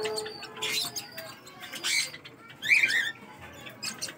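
Rainbow lorikeet giving a few short, shrill squawks and chirps with sweeping, wavering pitch.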